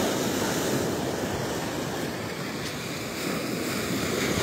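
Ocean surf breaking and washing up the beach in a steady rush, mixed with wind on the microphone.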